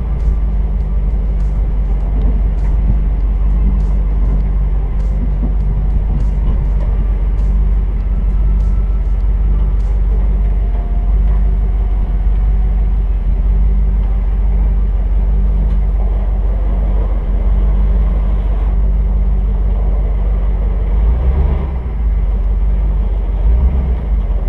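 A vehicle driving on the road: a steady low engine and road rumble. Light regular ticks, about one to two a second, run through the first ten seconds or so.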